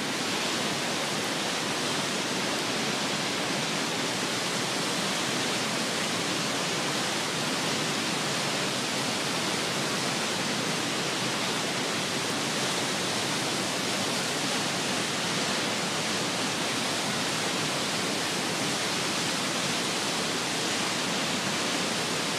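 Steady rush of whitewater from a creek and waterfall, an even hiss that does not change.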